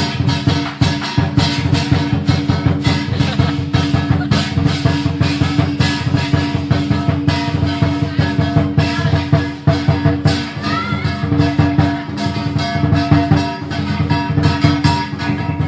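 Music with fast, dense drumming over held instrument tones.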